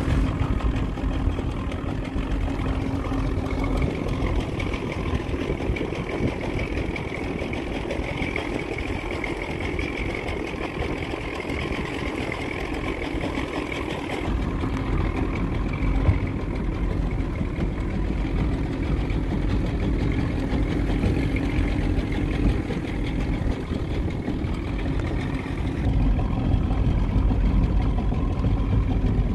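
1976 Johnson 55 hp two-stroke outboard motor running steadily, getting somewhat louder near the end.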